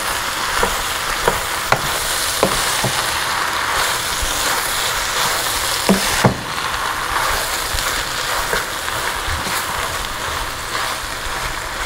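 Sliced sirloin strips and onions sizzling steadily in a hot oiled pan. Scattered clicks and knocks come from tongs stirring and turning the meat.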